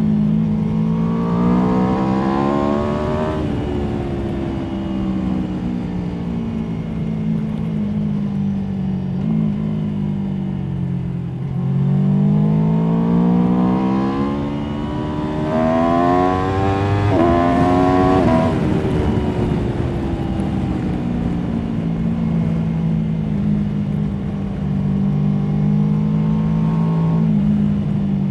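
Aprilia Tuono V4 motorcycle's V4 engine accelerating hard and rolling off. The revs climb about 2 seconds in and fall back, then climb again through several gears from about 12 seconds, dropping in pitch at each upshift. After that the engine runs at steadier, lower revs.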